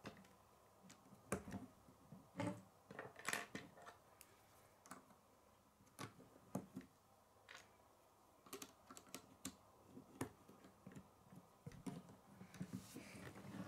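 Plastic K'nex rods and connectors clicking as they are snapped together and handled, in irregular, scattered light clicks.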